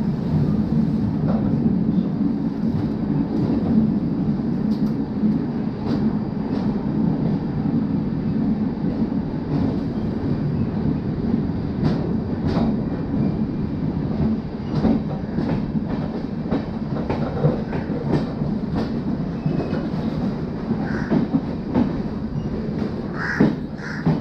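Passenger train coaches rolling out of a station: a steady low rumble, with wheels clacking over rail joints and points, the clacks coming more often in the second half.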